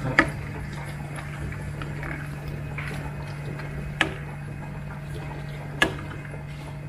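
Ground beef and tomato purée sizzling in a stainless steel frying pan while being stirred with a slotted spatula, which knocks sharply against the pan three times: at the start, at about four seconds and just before six seconds. A steady low hum runs underneath.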